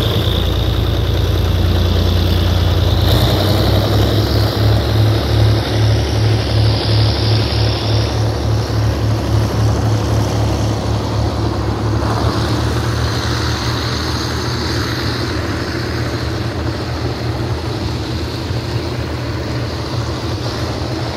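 Old GE 'GEK' diesel-electric locomotive running very loud under power as it hauls a passenger train away, a deep roar with a rhythmic throb in the first half. The coaches then roll past with a steady rumble that slowly fades.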